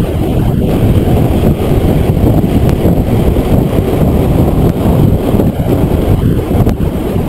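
Wind rushing over the microphone of a mountain bike ridden along a road: a loud, steady low rumble.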